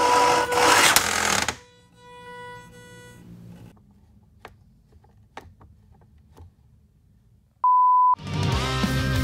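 3D-printed shredder's motor and gearbox running with a steady whine and grinding noise, then cutting off about a second and a half in, the whine dying away over the next two seconds. A few faint clicks follow, then a short high beep, and music starts near the end.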